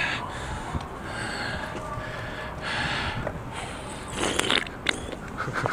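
A person drinking from a drink can: short breaths and sips, with a few small clicks near the end.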